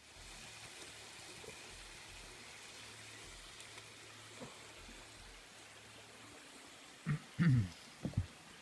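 Slices of sika deer heart frying in a pan over campfire embers: a faint, steady sizzle. A few short, louder sounds come near the end.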